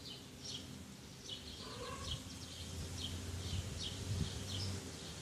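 Small birds chirping in the background, short high chirps repeating irregularly, with a low rumble swelling in the middle.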